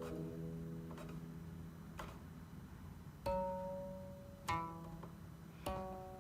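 Guqin music: slow single plucked notes, each ringing and fading before the next.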